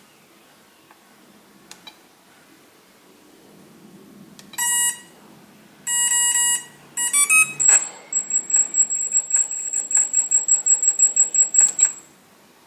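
Electronic beeps from the Emax BLHeli 40A ESC sounding through the brushless motor: a short beep and a longer beep, a quick rising run of tones, then a high-pitched beep pulsing about four times a second for about four seconds.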